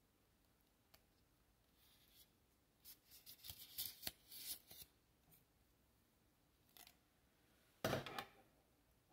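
The telescoping steel pole of a selfie stick tripod being pulled out, giving a quick run of light metallic clicks and sliding scrapes as its sections extend. A louder knock comes near the end as the stick is handled onto its tripod legs.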